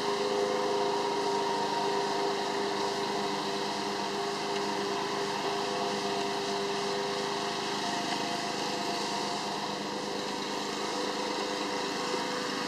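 Steady mechanical hum and hiss from a running motor or fan, with a few held tones that fade about halfway through.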